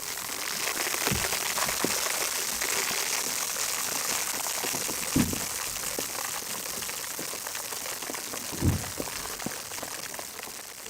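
Food sizzling and crackling as it cooks in hot oil, a dense steady hiss, with a few dull knocks, the loudest about five seconds in and near the end.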